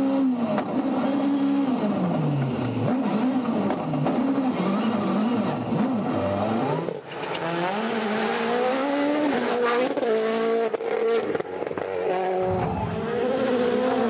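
Turbocharged rally car engines at full throttle on tarmac, revs climbing and dropping about once a second through hard gear changes and lifts, first heard from on board the car, then, about halfway through, a Hyundai i20 N Rally1 driving past with revs rising again.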